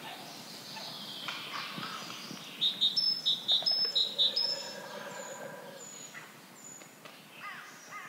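Wild birds calling and singing, with a burst of loud, rapid repeated chirps starting a little under three seconds in and lasting about two seconds.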